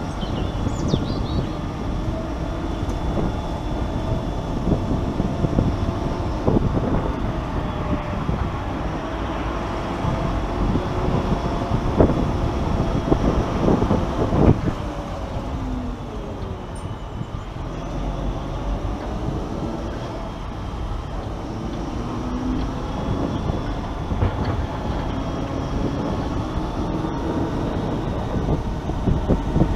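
Tractor running on the road while towing a loaded trailer: a steady engine drone with rattling and knocking. The engine note dips about halfway through and then picks up again.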